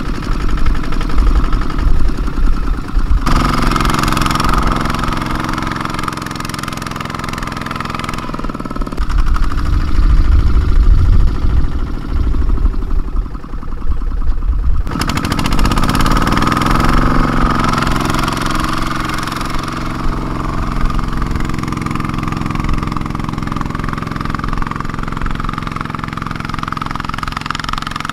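Kubota two-wheel walking tractor's single-cylinder diesel engine running hard, pulling a loaded trailer through mud. It revs up about three seconds in, drops back to a rougher low rumble, then climbs in speed again about halfway through and holds there.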